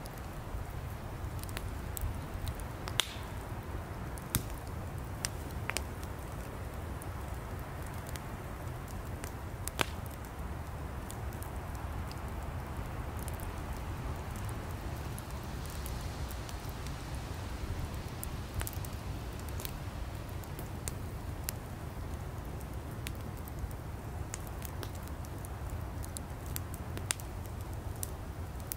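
Wood fire burning with a steady low rumble and hiss, and irregular sharp crackles and pops of firewood, a few louder snaps standing out.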